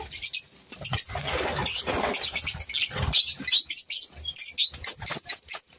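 A flock of lovebirds chattering with rapid, shrill, high-pitched chirps, with a flurry of wingbeats about a second in as several take off from a nest box.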